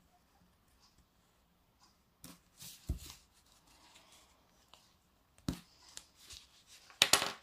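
Tape being picked and cut off a diamond-painting canvas tube: scattered scratches and clicks, a low knock of the tube on the table about three seconds in, and a louder burst of scratching near the end.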